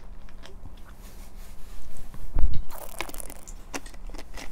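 Close-miked mouth sounds of drinking and chewing, small clicks and swallows. About two and a half seconds in there is a dull thump, followed by a short rustle.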